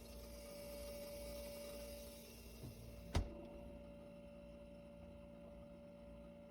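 Faint steady hum with a single click about three seconds in.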